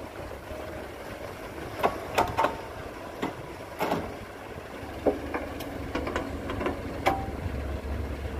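Diesel engine of a Cat 312B hydraulic excavator running in a steady low rumble while it loads soil into a dump truck. Sharp knocks and clunks come in clusters between about two and seven seconds in, as the load is emptied into the truck's bed and the bucket swings back.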